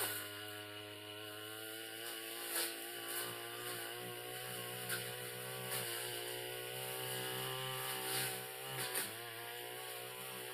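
Backpack brush cutter running steadily at cutting speed, its engine note dipping briefly a few times, with short sharp swishes and ticks as the spinning tanika blade strikes grass and stalks.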